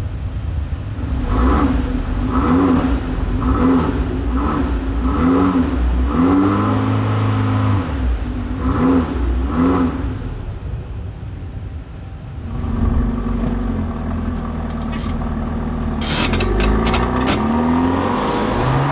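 Alfa Romeo Tonale Speciale's 1.3-litre turbocharged four-cylinder engine revved in a series of about eight short throttle blips, each rising and falling quickly. It then drops back and runs more steadily, with a few more rising revs near the end.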